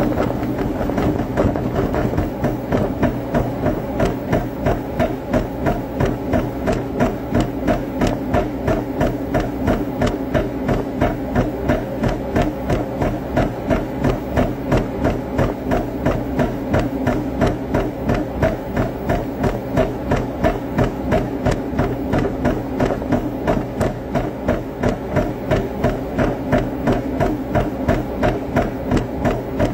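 Steady rhythmic knocking from a workout, about two beats a second, kept up without a break over a constant low hum.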